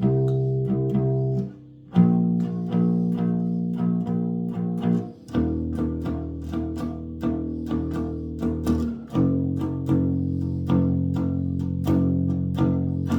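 Bass guitar played freestyle for strange noises: low notes ring on in blocks of a few seconds, and the pitch shifts three times, with a steady run of sharp plucks, several a second, struck over them.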